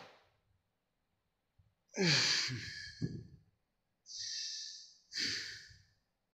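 A man sighing heavily: a long voiced sigh falling in pitch about two seconds in, followed by two more breathy exhales about a second apart.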